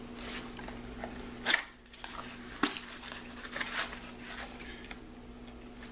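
Handling noise as cartridges are picked up and shown: a few soft clicks and rustles, the clearest about a second and a half in, over a steady low hum.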